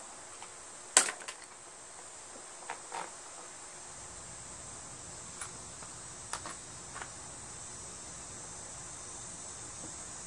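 Scattered light clicks and taps of small engine parts and tools being handled during disassembly of a small mower engine, the sharpest about a second in, over a steady high-pitched hiss.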